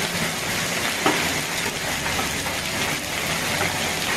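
Heavy hail falling: a dense, steady hiss of hailstones pelting pavement and ground, with scattered sharp ticks of single stones and one louder knock about a second in.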